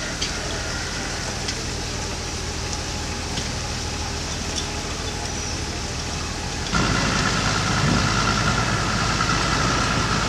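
Boat engine running steadily with a low hum. About two-thirds of the way through it changes abruptly to a louder engine drone with a steady high whine.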